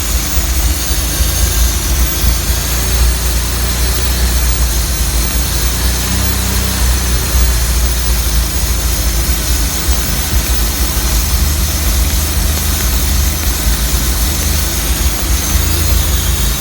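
Chrysler Slant Six inline six-cylinder engine idling, with a steady, super loud hiss over the low engine rumble: a vacuum leak whose source the owner cannot find.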